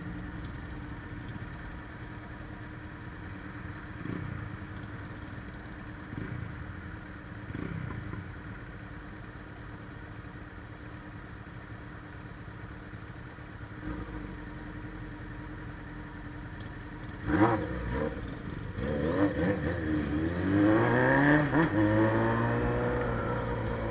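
Suzuki Bandit 600's carbureted inline-four on a straight-through exhaust, running low and steady with a few short blips. About three-quarters through a sharp bang, then the engine revs up and down and settles to a steady drone.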